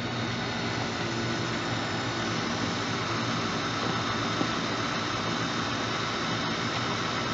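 Steady hum and hiss of a running ACE KISS 102 selective soldering machine, holding a few faint steady tones, with one brief click about halfway through.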